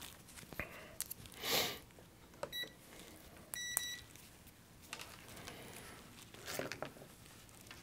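Digital multimeter in continuity mode beeping twice: a short beep, then a longer one about a second later, as it is readied to check for shorts. A soft rustle of handling noise comes just before, with a few light clicks.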